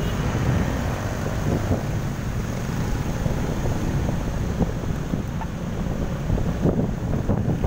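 Wind buffeting the microphone over the steady running of a motorcycle engine on the move, with surrounding road traffic.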